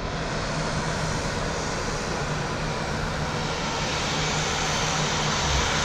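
Floatplane's propeller engine running steadily, slowly growing louder.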